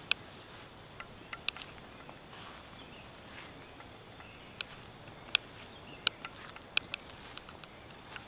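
Steady high-pitched chorus of crickets, with about six sharp clicks or snaps scattered through it that stand out as the loudest sounds.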